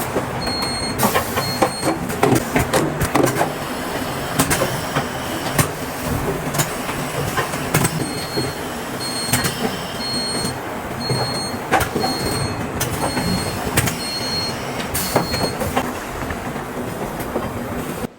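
Automated battery-cell assembly line machinery running, with steady mechanical noise and frequent clacks and knocks from the moving equipment. A high electronic beep repeats in short pulses at the start and again for several seconds in the middle.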